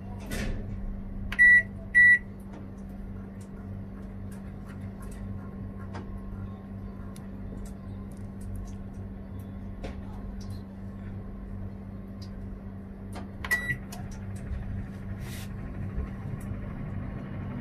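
Combination microwave-convection oven running with a steady hum while it bakes at 200 °C, after a button click at the start. Its keypad beeps twice, about a second and a half in, and once more near the end.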